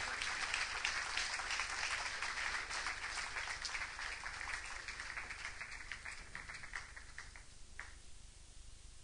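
Audience applause, a dense patter of many hands clapping that gradually fades out over the last couple of seconds.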